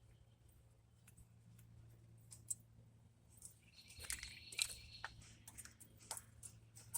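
Faint scattered clicks and metallic clinks of hand tools and brake parts being handled during front brake disassembly, over a steady low hum. The clicks thicken into a short cluster about four seconds in.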